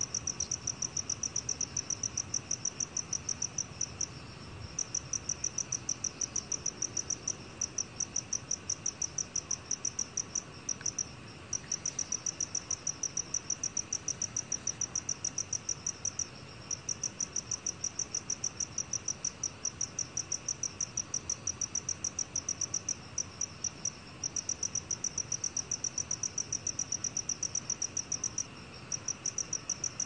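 Black cricket (검은귀뚜라미) male singing at 20 °C: a high, even chirping of rapid regular pulses. The song breaks off briefly every few seconds and resumes.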